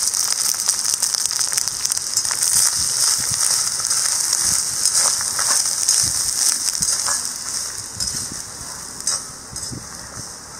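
A perforated steel ladle stirring grated coconut with coriander seeds and dried chillies in a black iron kadai: irregular scraping clicks and knocks against the pan over a steady high hiss, which fades about eight seconds in.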